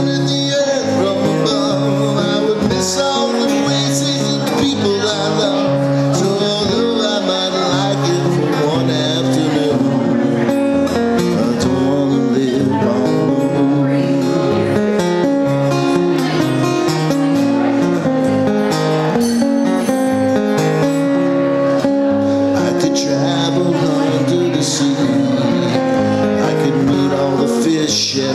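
A solo guitar played as an instrumental passage: a steady run of picked notes and chords with no voice.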